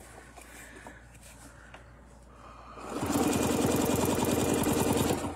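Domestic sewing machine stitching at a steady fast speed while quilting along a ruler. It starts about three seconds in after a quiet stretch and stops near the end.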